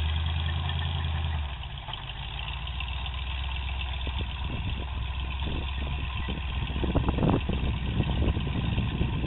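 Fuel-injected 383 stroker small-block V8 of a lifted Chevy pickup, heard from a distance, idling steadily in first gear with a 4:1 doubler low range as it crawls the truck across a snowbank. The engine note shifts slightly about one and a half seconds in, and uneven crackles join in over the second half.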